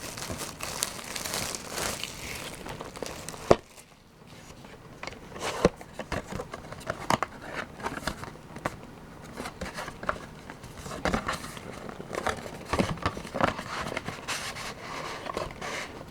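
Foil booster-pack wrappers crinkling as they are handled and torn open. There is one sharp click about three and a half seconds in, followed by scattered lighter clicks and rustles.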